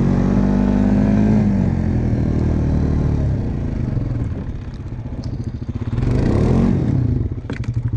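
ATV engine under throttle in deep snow: it holds a high rev, drops off about two seconds in, revs up again briefly about six seconds in, then falls back to a pulsing idle near the end with a few sharp clicks.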